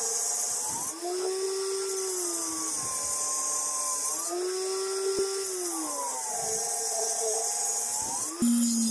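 Table saw cutting a wooden board. The motor's whine sags and climbs back in pitch several times as the blade takes and eases off the load of the cut, over a steady high hiss.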